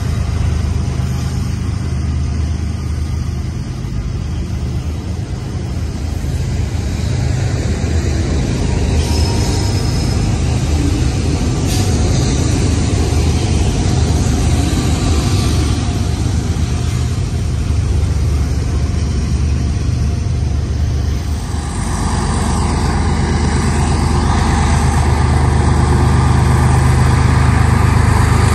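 Double-stack freight train passing close by: the diesel locomotives' engines drone low and steady, then the container cars roll past with a steady rush of wheel and rail noise. About 22 seconds in, the sound cuts to another BNSF diesel-led freight train, with more hiss over the engine drone, growing slightly louder.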